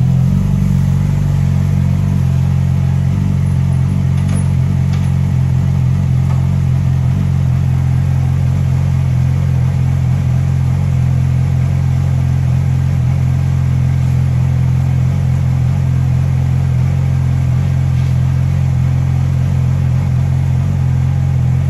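Sportbike engine idling steadily, a 2006 Yamaha YZF-R6's inline-four, loud and even throughout.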